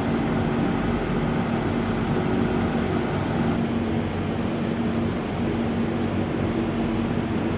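Steady low hum with a faint droning tone from a passenger train standing at a station platform, its machinery running at idle.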